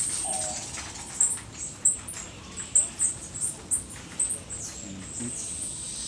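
Hummingbird calls: a string of short, very high-pitched chips, about two a second, with a thin, steady high tone at the start and again near the end.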